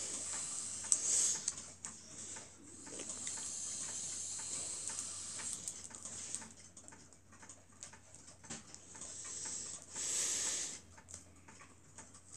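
Battery-operated gold lucky cat (maneki-neko) waving its arm, its small motor and arm mechanism ticking. Stretches of hiss come and go over the ticking, loudest near the start and about ten seconds in.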